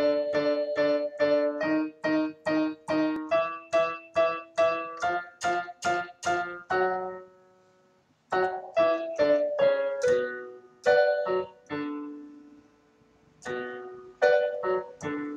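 Digital piano playing the instrumental introduction of a song. Repeated chords come about three a second and climb slowly in pitch. After a short break about eight seconds in, slower phrases follow with chords left to ring and fade.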